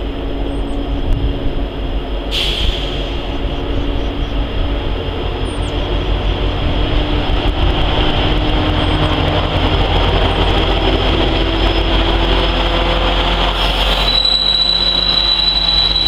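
Camp cars of a maintenance-of-way train rolling past on the rails, a steady noise of wheels on track. Near the end a high, steady wheel squeal sets in.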